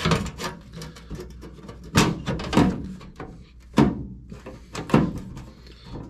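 Sheet-metal patch panel knocking and clunking against the floor of a 1989 Chevy K5 Blazer as it is pushed and shifted by hand into place for a test fit: five sharp metal knocks with lighter clicks between.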